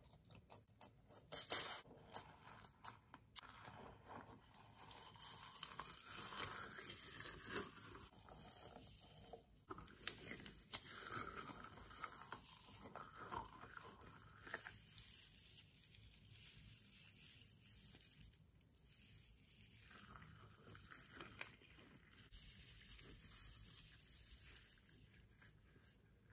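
Scissors snip through a clear spiky rubber stress ball in a few sharp cuts. The opened ball's sticky rubber and glittery filling are then squeezed and pulled apart, with steady crackling and tearing.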